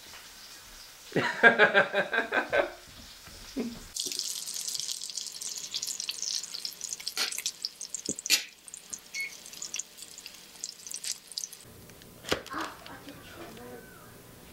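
Sausage links sizzling and crackling in hot grease in a frying pan, a steady high hiss from about four seconds in that stops a little before the end. Before it, about a second in, a young child's voice is heard briefly and loudly, and near the end there are a couple of knocks.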